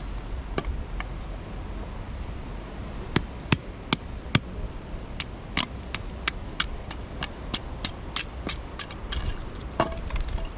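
A run of sharp clicks and knocks over a steady low rumble; scattered at first, then coming about three a second from midway on.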